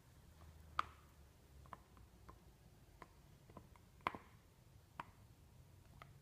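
A husky's teeth and mouth chewing a plush teddy bear, heard as faint irregular clicks, about eight in all, the sharpest about a second in and about four seconds in.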